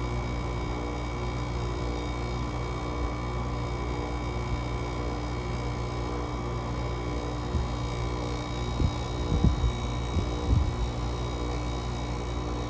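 GE 5050 BTU window air conditioner running steadily, its Samsung rotary compressor humming under the fan, building head pressure after a cold start in well-below-freezing air. A few short low thumps come about nine to eleven seconds in.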